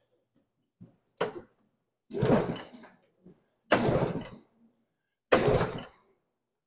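Recoil pull-starter of an Arctic Cat Panther snowmobile's two-stroke twin yanked four times: one short tug, then three full pulls about a second and a half apart, each cranking the engine over briefly. It does not fire because the ignition key is off.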